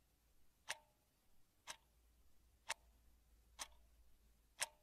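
Clock ticking steadily about once a second, five sharp ticks, some with a faint brief ring, over near silence.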